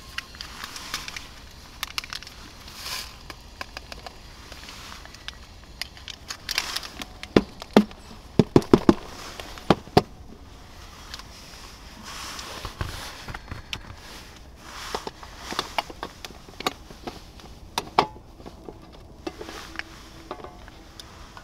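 Camp cooking gear and food packaging being handled: scattered clicks, knocks and crinkling, with a run of sharp knocks between about 7 and 10 seconds in, as water for coffee is set to heat.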